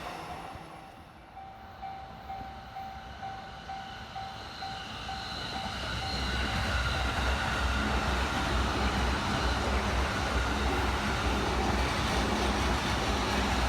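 A level-crossing warning bell ringing in a quick repeated tone. From about six seconds in, a train passes over the crossing with a loud, low rumble and rhythmic wheel beats that run on to the end.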